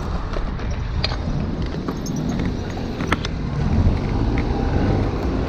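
Steady rumble of wind on the microphone and road noise from a road bike being ridden, with a few sharp clicks about a second and three seconds in.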